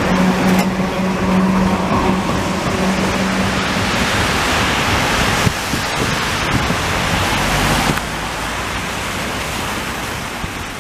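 FVV prototype tram rolling past with a steady hum for the first few seconds, over a constant hiss of car tyres on a wet road. The wet-road traffic hiss goes on as the tram moves away.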